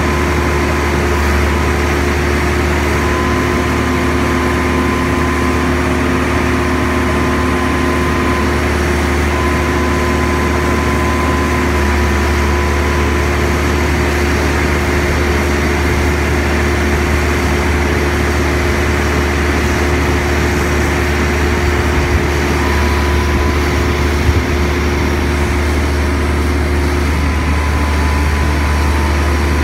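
Diesel engine of a truck-mounted mobile crane running steadily: a constant low hum with a faint whine that comes and goes.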